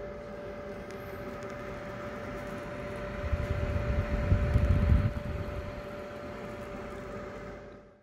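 Homemade air cooler's 120-volt fan running steadily, pushing air through a long plastic pipe, with a steady whine over the rush of air. For a couple of seconds in the middle, the air blast buffets the microphone with a louder low rumble; the sound fades out near the end.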